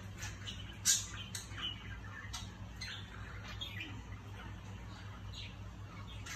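Steady low hum of aquarium equipment running, with short high chirps and clicks scattered every second or so, the loudest about a second in.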